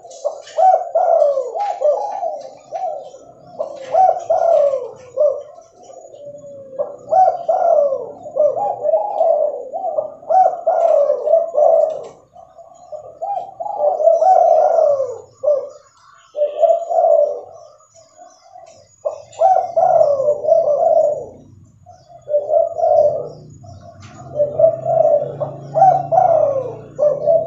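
Spotted dove cooing over and over, in runs of rising-and-falling coos a few seconds long separated by short breaks.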